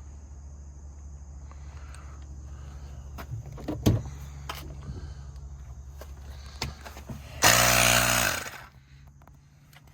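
Vehicle engine running with a steady low hum and a few clicks, then a loud, brief, pitched burst about three-quarters of the way in, after which the hum stops.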